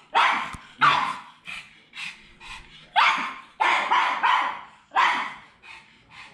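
A dog barking over and over in short, sharp barks, about one or two a second, with a few fainter barks in between.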